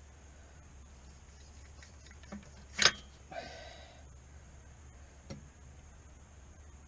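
A few sharp clicks and knocks of tools or parts being handled, the loudest just under three seconds in, followed by a short rattling scrape and one more click a couple of seconds later, over a low steady hum.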